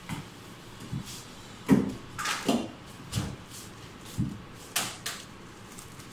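Kitchen clatter: a string of irregular knocks and thumps, like cupboards, utensils and containers being handled, the loudest a little under two seconds in.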